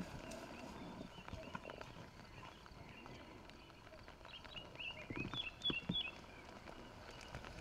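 Soft footsteps on a mown grass track. About four seconds in, a bird chirps a quick run of short high notes.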